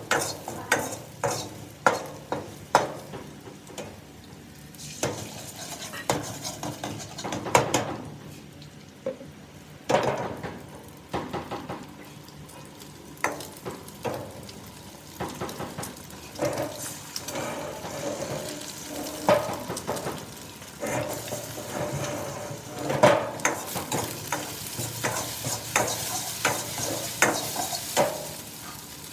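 Stir-frying flat rice noodles in a wok: a metal spatula repeatedly scraping and knocking against the wok in an irregular rhythm over steady sizzling. The sizzle grows louder in the last third.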